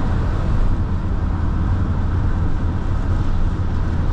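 Steady road noise inside a Peugeot car's cabin at motorway speed on a wet road: tyres and engine making an even, deep rumble.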